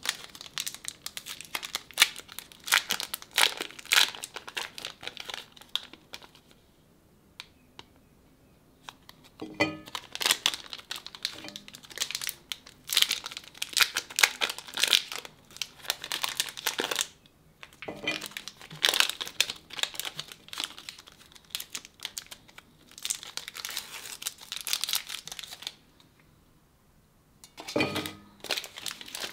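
Plastic chocolate-bar wrappers crinkling and tearing as they are peeled open by hand, in runs of crackle with short pauses between them.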